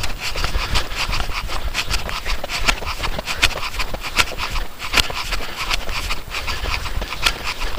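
Quick, regular footsteps crunching through snow on lake ice, with wind rumbling on the microphone.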